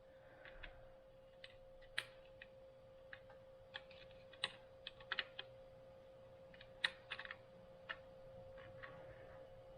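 Faint, irregular light clicks and taps of oiled metal clutch plates and friction discs being handled and set down, over a steady faint hum.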